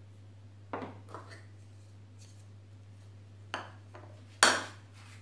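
Wooden casting patterns knocking and clattering as they are handled and set down on a workbench: a few separate knocks, the loudest about four and a half seconds in, over a steady low hum.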